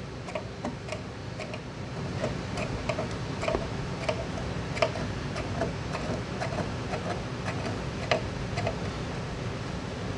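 Small, irregular clicks and ticks, several a second, as a metal paint can opener is worked along an aluminum boat rail to push masking tape under its lip. A steady low hum of an air conditioner runs underneath.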